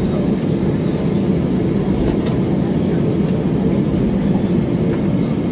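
Steady cabin noise inside an Airbus A320-200 taxiing slowly onto its stand: the jet engines running at idle together with the air-conditioning, a deep even rumble with a faint thin high whine held through it.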